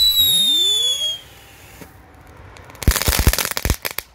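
Schokolino F1 fountain firework spraying sparks with a loud hiss and a whistle falling in pitch, which cut off together about a second in. Near the end, its crackling finale goes off in a quick cluster of sharp cracks.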